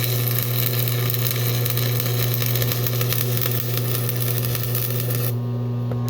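Stick welding arc crackling and hissing over a strong steady low hum. About five seconds in the crackle cuts out, leaving only the hum: the electrode has stuck to the plate.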